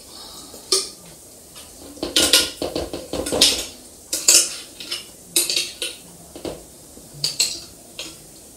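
Metal spoon scraping and clinking against the inside of a glass jar as thick, soaked ground fruit is spooned out, in a series of irregular short clinks and scrapes.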